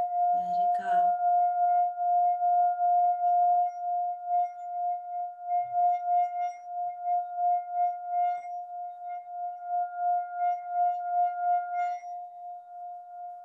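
A metal singing bowl is sung by circling a wooden mallet around its rim. It gives one steady ringing tone with a regular pulsing wobble and a fainter overtone above it. Near the end the overtone briefly drops out and the ring softens, then swells again.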